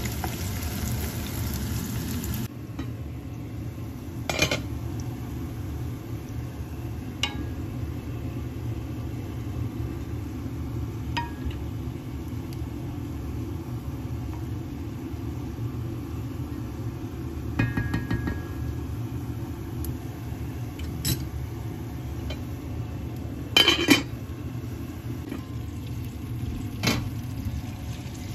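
Sliced onions sizzling in oil in a frying pan for the first couple of seconds. Then a steady low rumble under a wooden spoon stirring a pot of bulgur and lentils, knocking against the pot now and then, loudest about 24 seconds in.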